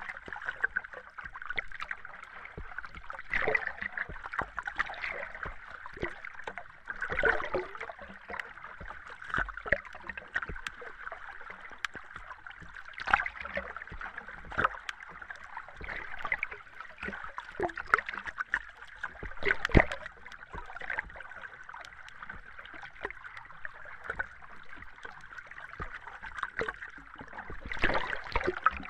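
Underwater ambience: a steady watery hiss with irregular bubbling pops and gurgles, a few louder bursts of bubbles scattered through it.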